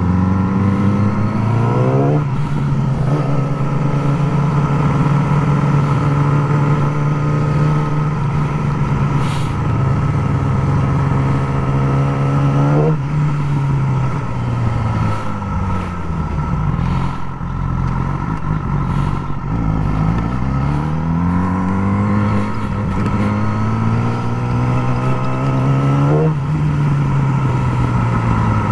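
Yamaha R6 inline-four sport bike with a Graves slip-on exhaust, ridden in traffic: engine pitch rises under throttle and drops at gear changes about 2, 13 and 26 seconds in, and sags as the bike slows then picks up again around the middle.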